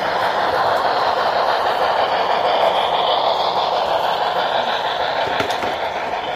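HO scale model train rolling along the layout's track, growing louder toward the middle and easing off as it passes.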